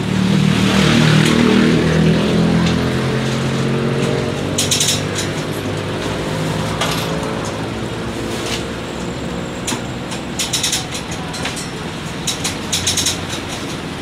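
Mercedes-Benz OF-1722M city bus with its OM-924 LA four-cylinder inline diesel engine running under load. It is loudest in the first couple of seconds, then keeps running steadily. Short sharp rattles come through a few times.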